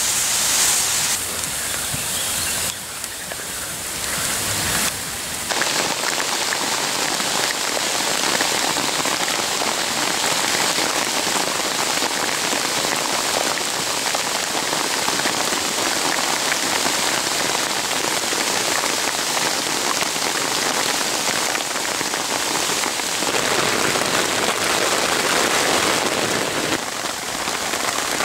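Rain falling steadily, briefly quieter about three to five seconds in.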